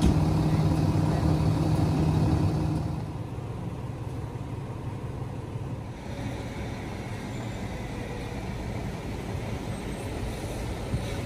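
A parked ambulance's engine idling with a steady low hum. About three seconds in it gives way to quieter, even street noise.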